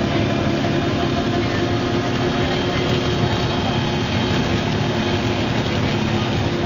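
MCW Metrobus's Cummins diesel engine running steadily at a constant pitch.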